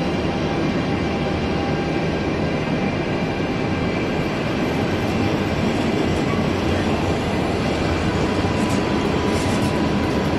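China Railway passenger coaches, green-liveried YW hard sleepers, rolling past along the platform: a steady, even rumble of wheels on the rails.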